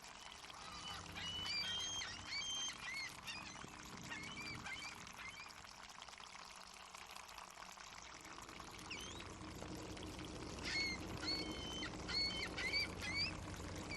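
Seagulls calling in two bouts of short cries, one about a second in and another near the end, over a steady wash of water lapping in a harbor.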